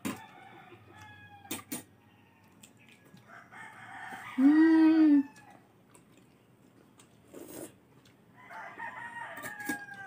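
A rooster crowing once, loudest about four to five seconds in, with fainter chicken calls before and after it.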